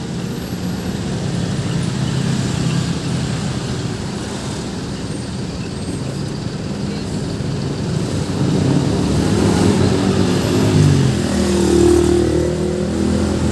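Road traffic moving off, with vehicle engines running; about two-thirds of the way through it grows louder as a heavy engine rises in pitch, accelerating.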